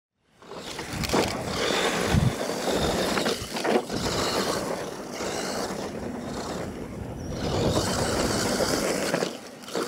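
Radio-controlled monster truck driving over a dirt course, its motor and tyres on loose dirt rising and falling with the throttle, with a few short scrapes and knocks.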